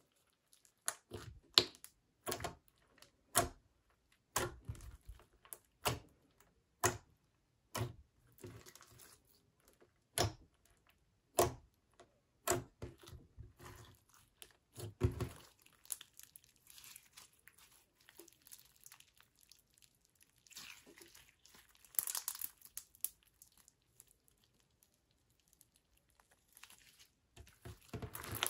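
Pink slime mixed with foam beads, pressed and folded by hand, making irregular sharp pops and crackles. The pops come thick for about the first half, then sparser, with a burst of crinkling crackle about two-thirds of the way in.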